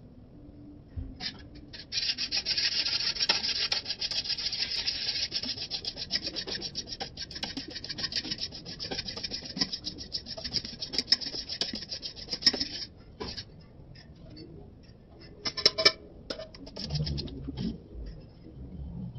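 Raw eggs being beaten with a steel spoon in a stainless steel bowl: rapid, continuous scraping and clinking of spoon against bowl. It starts about two seconds in, stops about two-thirds of the way through, and comes back briefly as a short burst a few seconds later.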